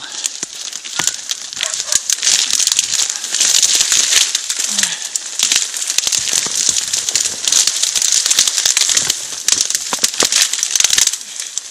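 Dry reed stems rustling, crackling and snapping as someone forces a way through a dense reed bed, the stems scraping close against the microphone.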